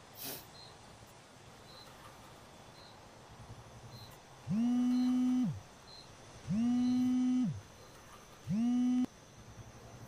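Mobile phone on vibrate buzzing for an incoming call: three buzzes about a second long each, about two seconds apart, each rising quickly in pitch as it starts and sagging as it stops.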